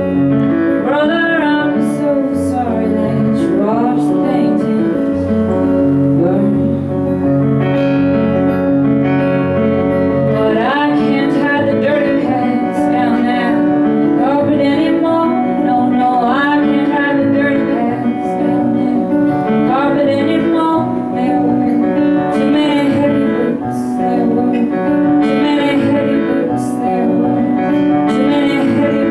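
Live folk song: acoustic guitar with a woman singing, low bass notes under the first ten seconds.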